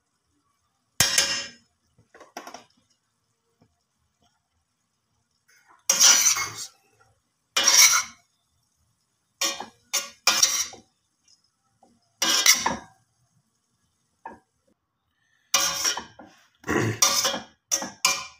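Metal spoon scraping and knocking against a stainless steel pot as boiled rice is mixed with fried vegetables and black pepper. It comes as about a dozen short separate strokes with pauses between, more closely bunched near the end.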